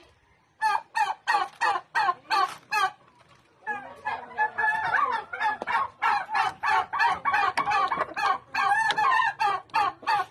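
A flock of chickens clucking and calling in a coop, rapid repeated calls at first, then many birds calling over one another from about four seconds in. There are two short lulls, one at the very start and one about three seconds in.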